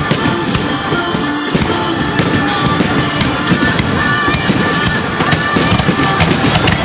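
Fireworks salute: firework shells bursting in a rapid string of bangs and crackles, with music playing at the same time.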